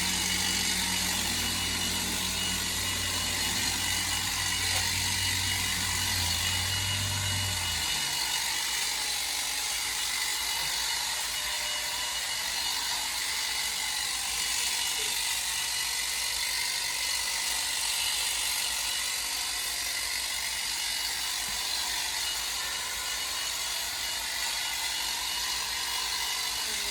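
Ego battery-powered telescopic hedge trimmer running with a steady low hum, cutting off about eight seconds in. A steady hiss of background noise continues throughout.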